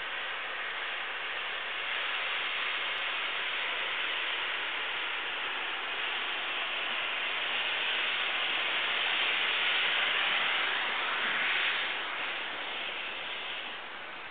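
Steam tank locomotive hissing steadily with escaping steam as it pulls away. The hiss swells to its loudest a little past the middle, then drops off near the end.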